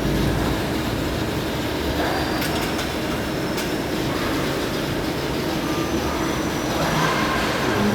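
Muratec CNC turning cell running: a steady mechanical drone with a low hum, a few faint clicks near the middle and brief higher tones near the end.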